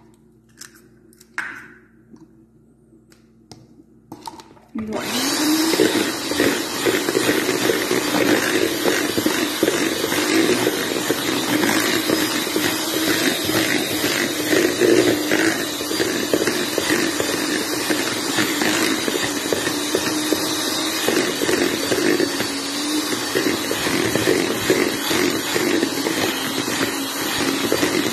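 A few light knocks, then about five seconds in an electric hand mixer switches on and runs steadily, its beaters churning a thick, sticky psyllium and nut-flour dough with eggs.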